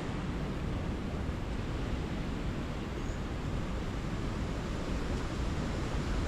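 Steady rush of river water, an even hissing noise with no change in level. A faint, short high chirp comes about three seconds in.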